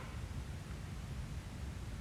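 Night-time outdoor background from inside a tent: a steady low rumble under an even hiss, with one brief high chirp or click right at the start.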